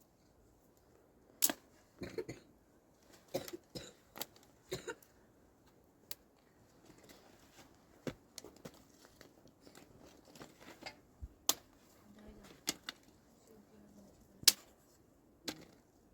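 Scattered sharp clicks and crunching handling sounds at an irregular pace, with a few louder snaps.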